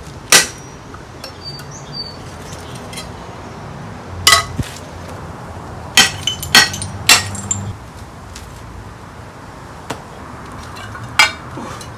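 Hammer blows on a flower pot, about six sharp knocks with a short ring after each, spaced unevenly, cracking the pot so a root-bound plant can be freed.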